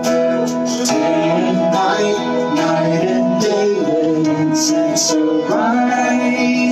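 Worship song with guitar and singing.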